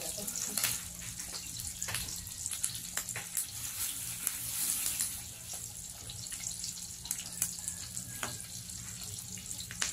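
Pork belly slices sizzling in a grill pan: a steady hiss with scattered spitting pops of fat.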